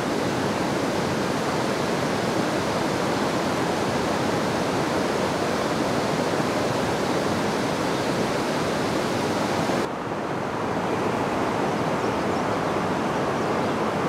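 River water rushing over rocky rapids, a steady, even rush. About ten seconds in it dips slightly and turns a little duller.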